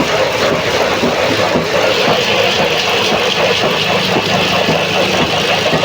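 A woodworking machine running steadily with a low hum and dense mechanical noise; about two seconds in a higher hissing noise joins and holds.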